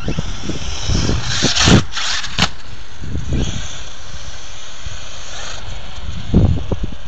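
Brushless electric RC truck, a converted 1/5-scale HPI Savage Flux HP, driving over dirt: a high motor-and-tyre hiss, with wind buffeting the microphone in low gusts. Two sharp clicks about two seconds in.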